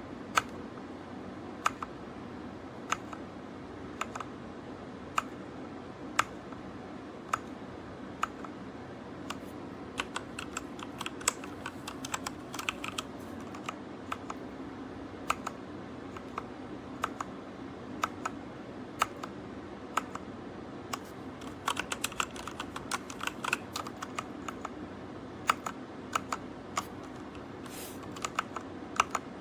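Keys of a Redragon K617 Fizz 60% mechanical keyboard being pressed. There are single keystrokes about once a second at first, then quicker flurries of typing in the middle and again near the end.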